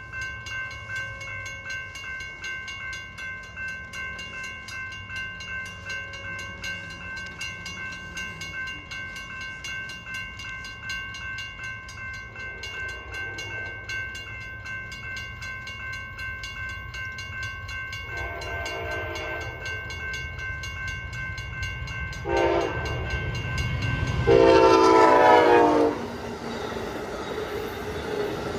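Railroad crossing bells ringing rapidly and steadily as the signals activate. An Amtrak SC44 locomotive horn sounds, first faintly, then three louder blasts, a short one followed by the loudest and longest, with the rumble of the approaching train building near the end.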